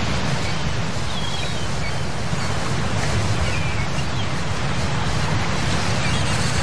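Steady rushing noise with a deep rumble underneath and a few faint high chirps.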